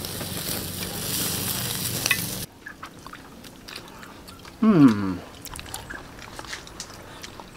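Pork steaks sizzling on a wire grill over an open fire, a steady hiss that cuts off abruptly about two and a half seconds in. After that come scattered soft clicks and, near the middle, one short loud cry that falls in pitch.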